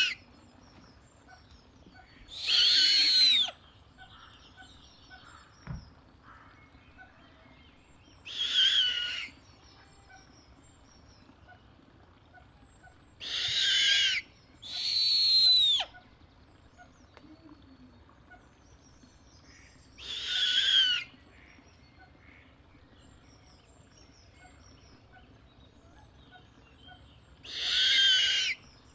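Snowy owl giving harsh screeches, six in all, each about a second long and several seconds apart, two of them close together near the middle. Each call's pitch arches up and then drops away at the end.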